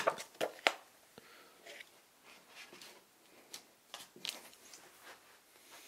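Glossy photo prints being handled and flipped by hand: soft paper rustles and a few sharp flicks and taps, clustered near the start and again about four seconds in.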